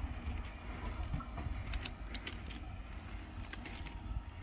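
Faint outdoor ambience: an uneven low rumble with a few scattered light clicks.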